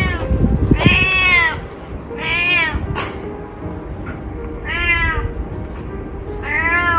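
A cat meowing over and over: five drawn-out meows, each rising and then falling in pitch, the first three about a second apart, then a longer gap before the last two.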